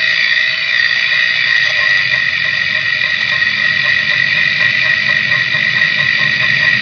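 Drivetrain noise of a 2016 Mitsubishi Outlander picked up by a chassis-ear sensor at the passenger-side CV axle's middle support bracket: a steady high-pitched whine over a low hum. It is the same noise the car had before, not cured by the replacement CV axle.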